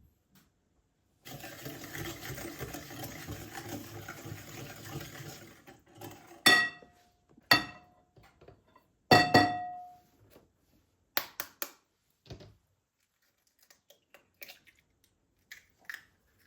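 Kitchen tap water running for about four seconds, then three loud ringing clinks of kitchenware being set down, followed by a few light clicks and a soft knock.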